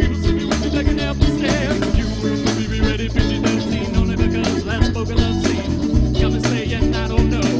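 A live band playing an up-tempo song with a steady drum beat.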